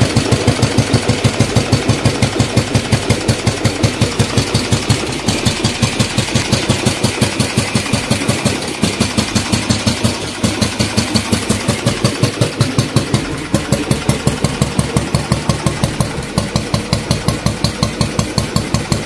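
1953 Matchless G3LS single-cylinder 350 cc four-stroke engine idling steadily, its exhaust beating evenly at about five beats a second.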